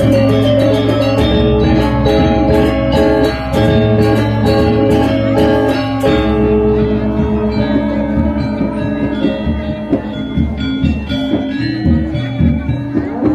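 Balinese gamelan music: struck metallophones ringing in fast interlocking notes with quick metallic strikes. A deep low tone sounds under the first half and fades out about six seconds in.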